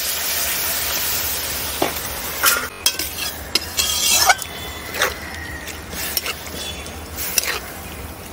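Water just added to a hot metal wok of prawn and vegetable curry sizzles loudly and dies down over the first couple of seconds. A flat metal spatula then scrapes and clinks against the wok at irregular intervals as the curry is stirred.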